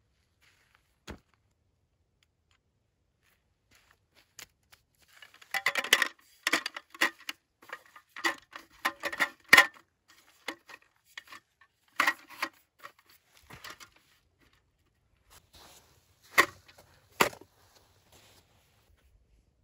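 Folding camp table with a slatted top being set up by hand: a burst of clattering and clicking from its slats and metal legs, then scattered knocks, with two sharp ones near the end.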